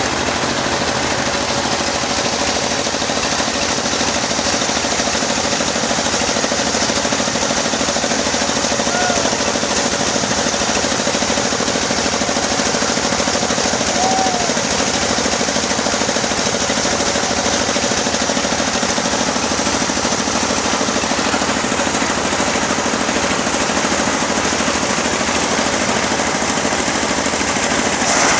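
Homemade engine-driven sawmill running steadily at high speed, sawing a teak log: a loud, even machine drone with a fast pulsing rattle and a steady hum.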